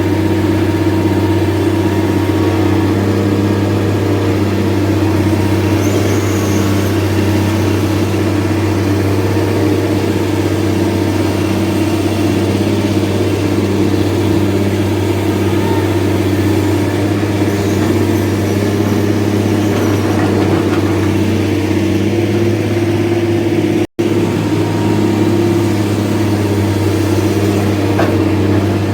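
An engine running steadily with a low hum and an even pulse in its note, cut by a split-second dropout about five seconds before the end.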